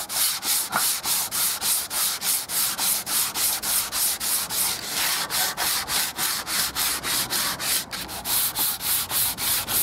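180-grit sandpaper on a hand sanding block rubbed quickly back and forth over dried wood filler and painted timber, an even rasping scrape at about four strokes a second. This is the final light sand that flattens the last coat of filler before painting.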